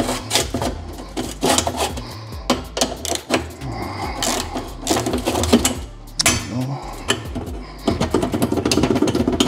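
Hand tools clicking and clanking against metal while exhaust fasteners are worked loose under a car, with a dense run of fast clicks near the end.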